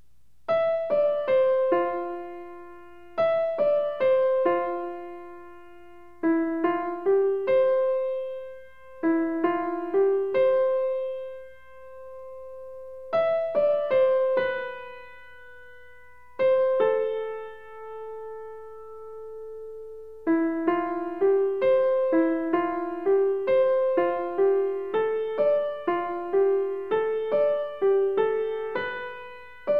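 Background music: a gentle melody of single struck keyboard notes that ring and fade. It moves in slow, spaced phrases, then from about twenty seconds in becomes a quicker, even run of notes.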